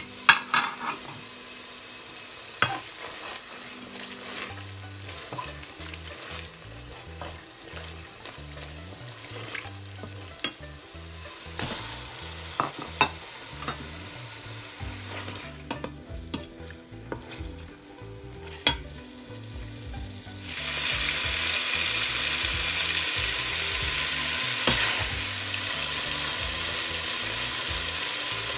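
Whole spices and then chicken pieces frying in hot oil in a steel pan, a steady sizzle with scattered sharp clinks of a utensil against the pan. About two-thirds of the way through the sizzle suddenly grows much louder and stays loud.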